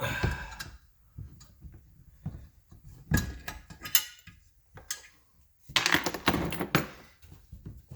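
Hand tools and small metal parts clinking and knocking on a hard counter as they are picked up and set down: scattered clicks, with a busier flurry of clatter about two-thirds of the way through.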